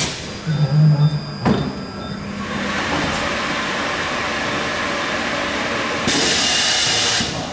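Corghi Artiglio Master Code tyre changer working through its automatic cycle: a brief low hum and a clack, then steady mechanical running noise, with a loud hiss for about a second near the end.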